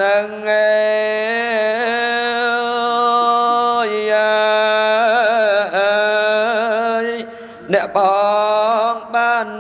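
Khmer Buddhist smot, the melodic funeral chant, sung solo by a monk into a microphone. His male voice holds long notes with wavering ornaments and pauses for a breath shortly before the end.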